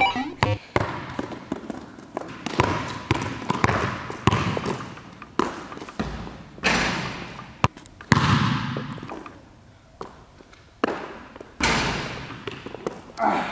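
Basketball thudding on a hardwood gym floor and hitting the rim and backboard during shooting, about a dozen irregular impacts, each echoing in the large hall.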